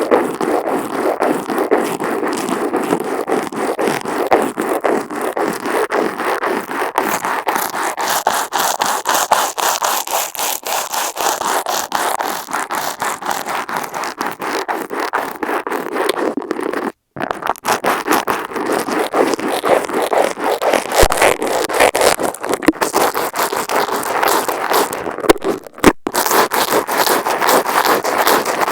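Makeup brush bristles swept rapidly over an Apple wired earphone microphone attached to a wall, heard right at the microphone as a loud, dense, fast scratchy brushing. It cuts out for a moment about 17 seconds in.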